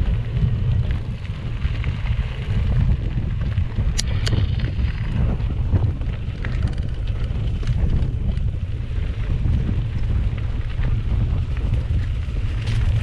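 Mountain bike rolling along a dirt trail: a steady low rumble of wind on the handlebar-mounted camera's microphone and tyres on the bumpy ground, with two sharp ticks about four seconds in.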